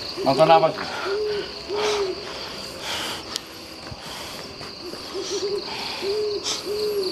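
Owl hooting: two runs of three short, soft hoots, each run opening with a quavering note, a few seconds apart, over a steady high cricket trill.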